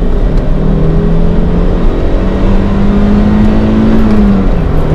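The Toyota MR2 Roadster's mid-mounted 1.8-litre 1ZZ-FE four-cylinder engine pulling under acceleration, heard from inside the cabin with the engine behind the seats. Its note steps up in pitch about two seconds in and drops back near the end, over a steady rumble of tyre and road noise coming through the cabin.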